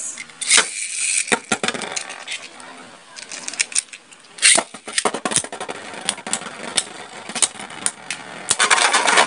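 Beyblade Burst spinning tops whirring and colliding in a plastic tub stadium: an irregular run of sharp clicks and clacks as they strike each other and the wall, thickest near the end.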